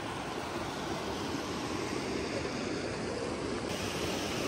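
Shallow mountain river rushing over rocks and small rapids: a steady rush of water that grows gradually louder.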